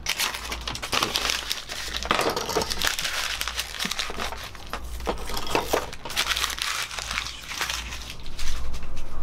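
A sheet of paper being sliced into strips with a carbon-steel Opinel folding knife, then the loose paper strips rustling and crinkling as they are gathered up.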